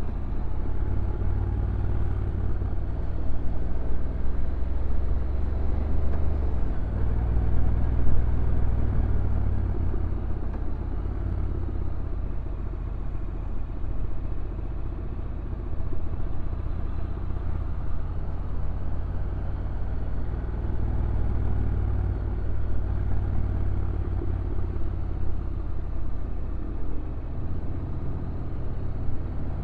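Honda NC750X motorcycle's parallel-twin engine running through a downhill ride, over a heavy low rumble that swells and eases slightly without stopping.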